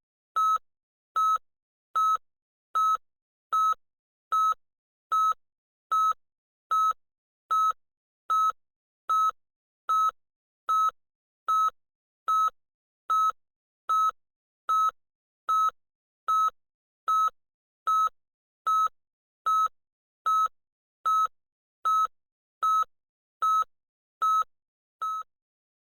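Electronic beeper sounding short, loud beeps at one high pitch, evenly spaced at a little over one a second. The last beep, near the end, is weaker, and then the beeping stops.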